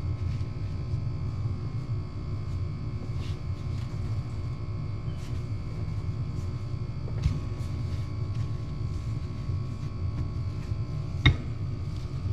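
Steady low background hum, with a few light clicks and taps as small clutch parts and tools are handled; the sharpest click comes near the end.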